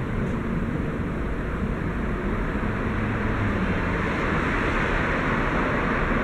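Steady rumble and hiss of parking-garage background noise, growing a little louder in the second half.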